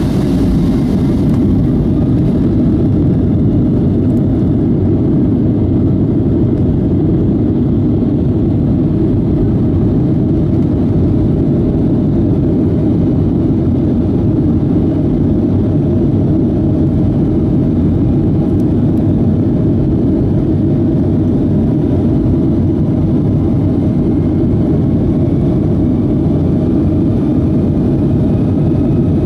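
Boeing 757-200's twin jet engines at takeoff power, heard inside the cabin during the takeoff roll: a loud, steady, deep rumble with runway rumble mixed in. A faint rising whine comes in near the end as the jet gathers speed.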